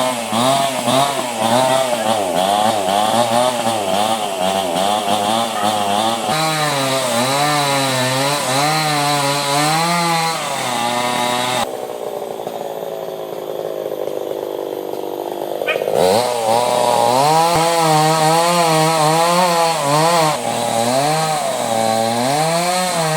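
Chainsaw cutting durian wood, its engine pitch wavering up and down as it works under load. About twelve seconds in it eases off for roughly four seconds, then bites in again at full pitch.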